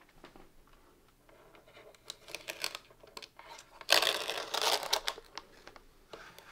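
A plastic instruction sticker being peeled off a 3D printer's plastic casing. Light crinkling of the film comes first, then a louder peeling rasp lasting about a second, starting about four seconds in.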